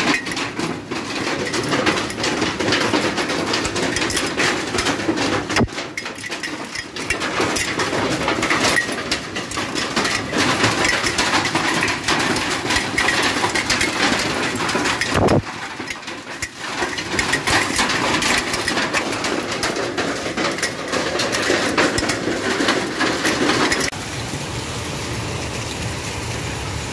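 Hailstones pelting down in a heavy hailstorm: a dense hiss made of countless sharp ticks and clicks. Near the end it softens to a steadier hiss.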